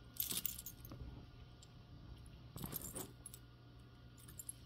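Metal costume jewelry jingling and clinking as it is handled, in two short bursts, one just after the start and one a little past halfway, with a few light clicks between.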